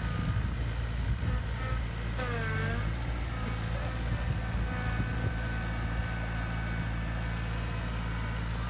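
Compact utility tractor's engine running steadily as it drives slowly along, a low even hum.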